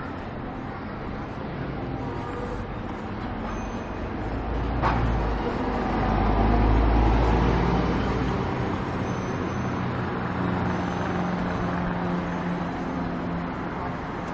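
City street traffic: cars driving past, with one vehicle rumbling loudest as it passes close by about six to eight seconds in. A single sharp click about five seconds in.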